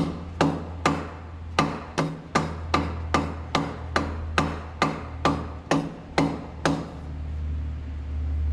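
Mallet blows on a stuck exhaust manifold, about seventeen sharp knocks at a little over two a second, stopping about two-thirds of the way through. The manifold is a force fit and is being knocked loose from the engine. A steady low hum runs underneath.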